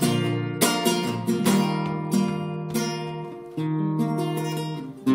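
Classical guitar being strummed and plucked, with chords ringing out and fading between strokes. There is a short gap just before a fresh, strong strum at the very end.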